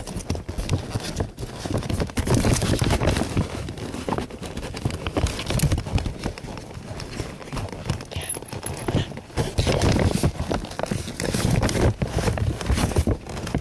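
Handling noise from a hidden camera carried inside a bag: a dense, irregular run of knocks and rustling right at the microphone.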